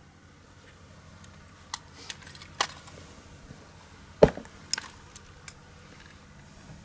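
A quiet pause with a few scattered short clicks and knocks, the loudest about four seconds in.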